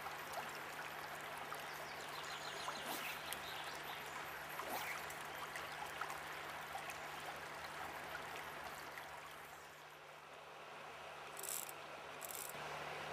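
River water flowing steadily, an even rush with faint scattered ticks. It fades a little about ten seconds in, and two short hissy bursts follow just after.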